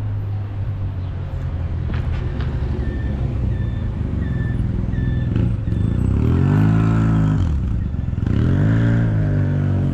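A motor vehicle engine running close by, with a steady low hum. Its pitch rises and falls back twice as it revs in the second half. Around the middle there are four short, evenly spaced high beeps.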